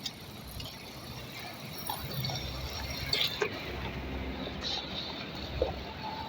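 A vehicle travelling along an unfinished road: a steady low rumble with scattered small clicks and rattles.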